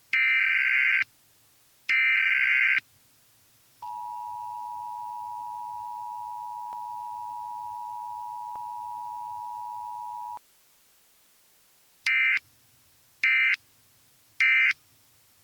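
Emergency Alert System tones: two one-second screeches of SAME digital data bursts, then the two-tone EAS attention signal (853 and 960 Hz together) held steady for about six and a half seconds, then three short data bursts.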